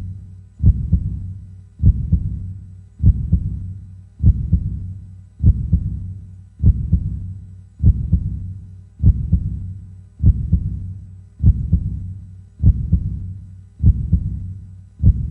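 Slow heartbeat sound effect: low double thumps, lub-dub, about one every 1.2 seconds, each fading over a steady low hum.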